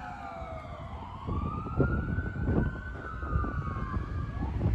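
Fire engine siren on a slow wail: falling at first, rising again about a second in, holding, then dipping and starting to rise once more near the end. Traffic and engine rumble run underneath.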